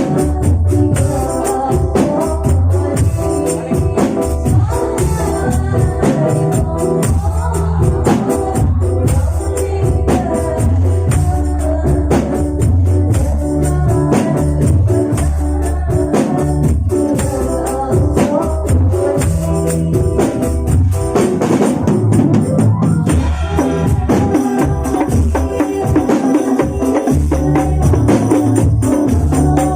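Rebana ensemble playing a steady rhythm: frame drums with jingles and deep bass drum strokes under a sung melody.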